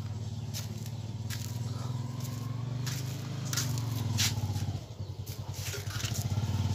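A small engine running steadily with a low, pulsing note that dips briefly about five seconds in, with scattered clicks and scrapes over it.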